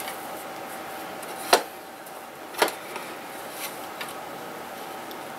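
Two sharp knocks about a second apart, then a couple of faint ticks, as an ex-railway stop sign with a lamp housing on its post is handled, over a faint steady hum.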